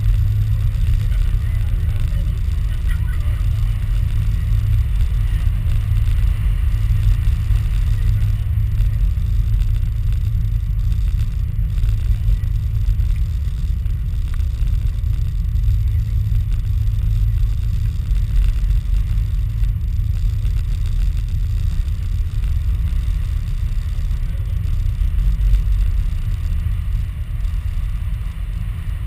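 Steady low rumble of a Sugarloaf Mountain cable car cabin climbing along its cables, with wind buffeting the microphone.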